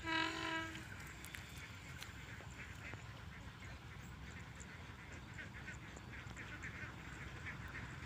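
A horn sounds once at the start: a single steady blast of under a second. Faint short calls repeat over a low steady rumble after it.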